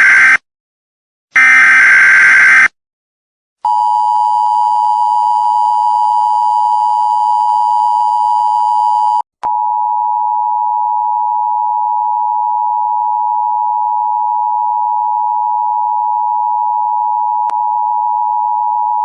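Emergency Alert System tones: the end of one short burst of screechy SAME header data and then a second burst, followed by the EAS two-tone attention signal, a steady high dual tone. The tone drops out for a moment about halfway through and then resumes.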